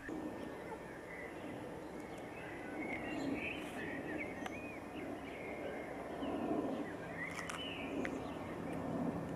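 Outdoor ambience of birds chirping and twittering in short calls over a steady background rumble, with a low steady hum joining about seven seconds in.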